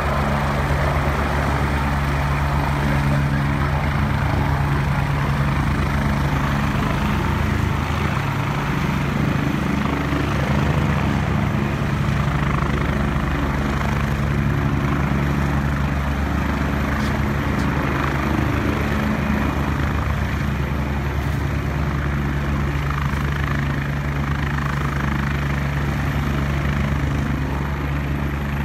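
Agusta A109E twin-turbine helicopter descending and touching down: a steady rapid rotor beat over turbine whine, running on with its rotors turning once it is on the ground.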